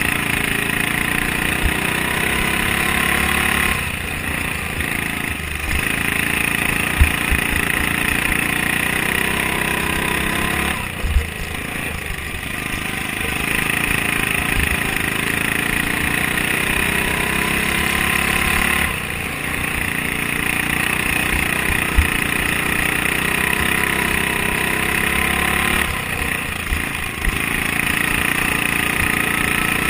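Racing lawn mower engine, a Briggs & Stratton Vanguard, heard from on board, running hard and easing off briefly about four times before pulling again. A few short thumps come through as the mower jolts over the rough track.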